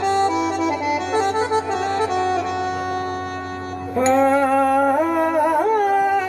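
Live Punjabi folk music: a reedy accordion-like instrument plays a melody, and about four seconds in a male singer comes in on a long held, wavering note.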